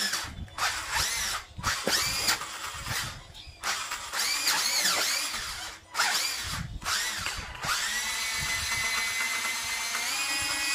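Electric motor and gear drivetrain of an RC crawler whining as the motor is revved in a string of short bursts, each rising and falling in pitch. It is then held at a steady whine from about eight seconds in, which steps up in pitch near the end.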